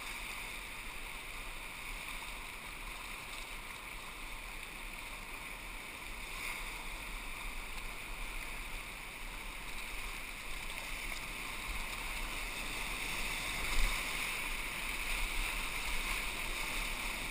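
Steady rushing of whitewater rapids heard from a camera on a kayak's bow just above the water, with one brief knock about fourteen seconds in.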